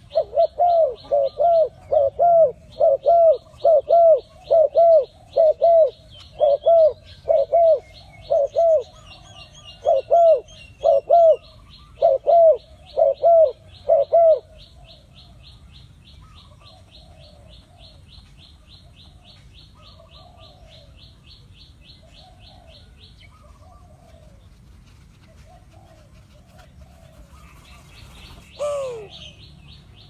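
Spotted dove cooing: a long run of loud, evenly spaced coos, about two a second, that stops about halfway through. A fast, high chirping trill runs under the coos, and a single loud falling call comes near the end.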